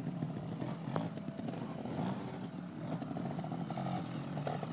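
Trials motorcycle engine running at low revs while the bike is ridden up over boulders, with a few short throttle blips near the end.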